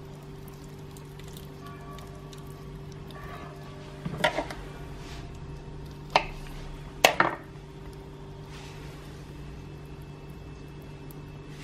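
Three sharp knocks of a kitchen knife and handling on a cutting board, about four, six and seven seconds in, over a steady low hum.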